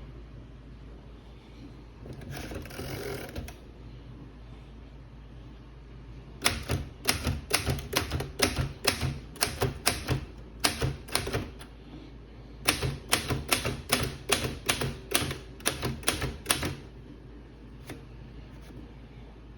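Royal typewriter typing: a brief rasping sound, then two runs of sharp key strikes at about three a second, separated by a pause of about a second.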